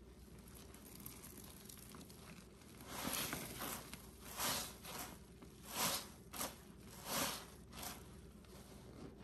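Smiley-face scrubber sponges caked with powdery cleaning paste being squeezed in rubber-gloved hands. The first few seconds are quiet, then about eight separate squeezes follow from about three seconds in, each a short wet crunching squish.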